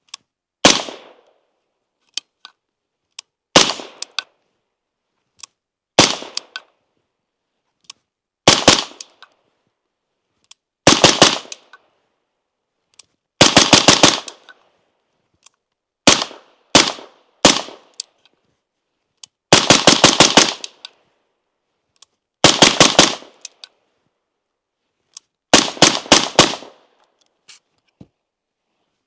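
Suppressed AR-15 rifle with an LMT 14.5-inch monolithic upper firing through an Irregular Defense Hesychia SIXK suppressor. It fires single shots and pairs at first, then fast strings of four to six shots, each shot followed by a short echo.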